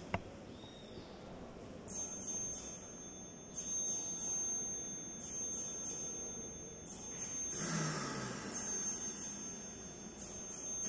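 An electronic sound installation playing several thin, very high steady tones that switch on and off in short blocks, ringing like chimes. About two thirds of the way through comes a low, falling sound.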